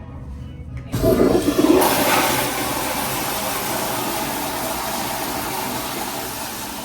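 Commercial toilet flushing through a Zurn EcoVantage flush valve. It starts suddenly about a second in with a loud rush of water, then settles into steady running water that slowly fades.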